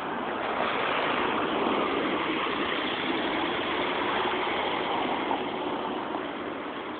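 Engine of a sightseeing boat on the river running steadily, growing louder as it approaches and then slowly fading as it passes.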